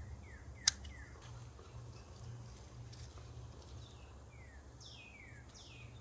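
Birds calling with short, quick downward-sliding chirps, several times over. About two-thirds of a second in comes a single sharp snip of pruning shears cutting a basil stem, the loudest sound, over a steady low rumble.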